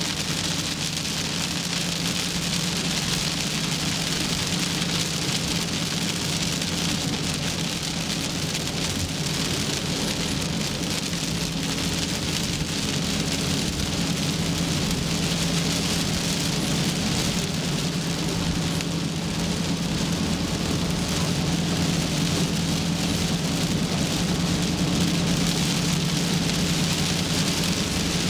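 Torrential rain on a car's roof and windshield, heard from inside the cabin while driving, as a steady dense hiss over a low steady hum of the car and its tyres on the flooded road.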